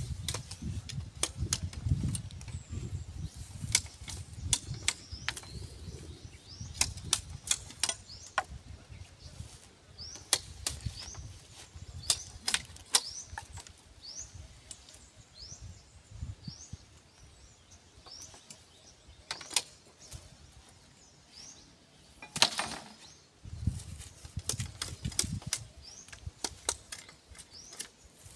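Scattered sharp knocks and clicks at irregular intervals, the loudest about 22 seconds in. From about ten seconds in, a bird repeats a short rising chirp roughly once a second.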